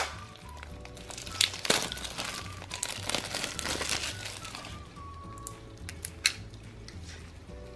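Thin clear plastic candy wrapper crinkling as fingers twist and peel it off a small hard candy, most busily between about one and a half and four seconds in, over background music.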